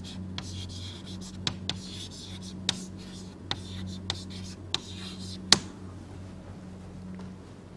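Writing: scratchy strokes with sharp taps as the writing implement meets the surface, the last and loudest tap about five and a half seconds in, after which the scratching stops. A steady low electrical hum runs underneath.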